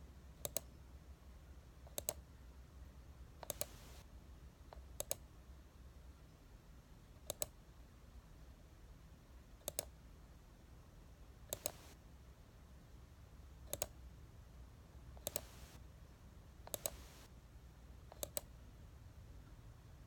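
Sharp clicks, most in quick pairs, coming about every two seconds; a few are followed by a brief soft scratch. A low steady hum runs underneath.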